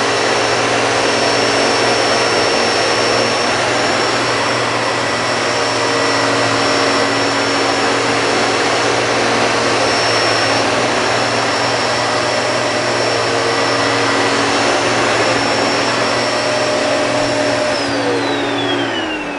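Two Hoover vacuum cleaners, a Hurricane 2000 W and a Turbopower Boost, running together with a loud, steady rushing whine. Near the end they are switched off and the whine falls in pitch as the motors spin down.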